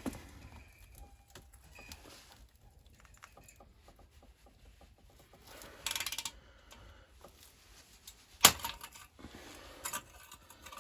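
Small metallic clicks and clinks of a hand spanner working a corroded exhaust clamp bolt on a motorcycle, with a brief metal rattle about six seconds in and a single sharp metal clack about eight and a half seconds in, the loudest sound.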